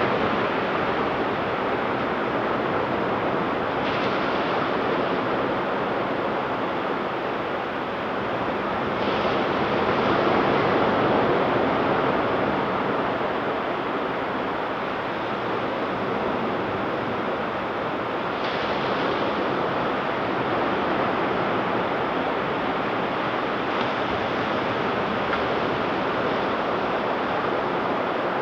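Ocean surf washing steadily onto a sandy beach, with four fresh waves breaking at uneven intervals and the wash swelling a little louder near the middle.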